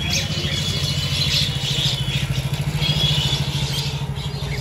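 Motorcycle engine idling with an even, steady putter, while a feeding flock of mynas chirps and chatters over it.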